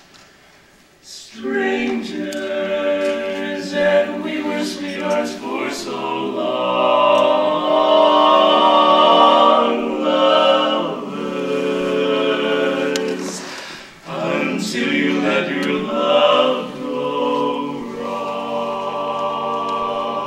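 Male barbershop quartet singing a cappella in close four-part harmony. The singing starts about a second in, breaks off briefly about two-thirds through, and picks up again.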